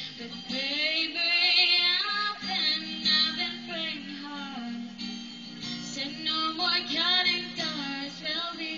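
A young woman singing a pop song into a microphone, accompanied by an acoustic guitar.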